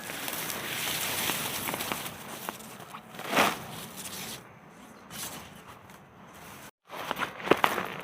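Dry rustling and crackling, as of dry material such as straw being handled, with a louder burst about three and a half seconds in and sharp clicks near the end; the sound cuts out completely for a moment shortly before the clicks.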